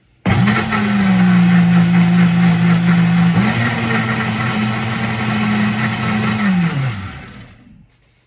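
Countertop blender's motor running on a jar of thick strawberry-banana smoothie: it starts abruptly, sags slightly in speed, picks up again about halfway through, then winds down and stops near the end.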